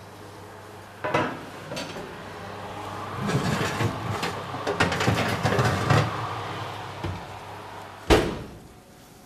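Kitchen clatter: knocks and rattling of pots, dishes and utensils on a worktop, busiest in the middle, with one sharp knock near the end.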